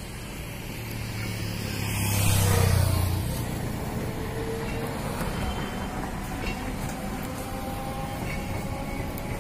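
Suburban EMU train running past, with a loud rush and low hum peaking about two to three seconds in. A steady rumble follows, under a faint whine that slowly rises in pitch as the train gathers speed.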